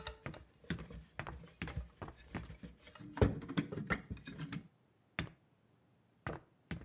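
Light, irregular clicks and taps of a person moving about on a wooden floor and handling cardboard boxes, several a second. They stop just under five seconds in, leaving two single clicks.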